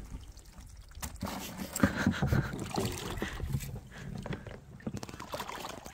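Wading through shallow seawater in rubber waders, water sloshing and splashing with each step. The sloshing starts about a second in and goes on unevenly.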